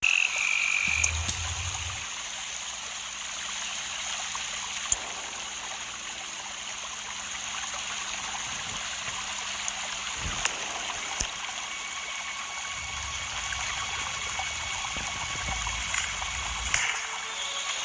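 Steady nature ambience of frogs calling over running water, with a few faint clicks.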